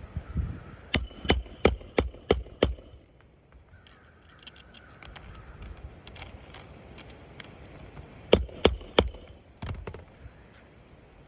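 Hammer driving roofing nails into shingles: a run of about six quick, ringing strikes, then a pause and three more strikes.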